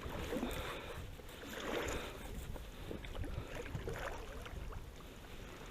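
Water sloshing and lapping around a small rowboat, with a few light knocks.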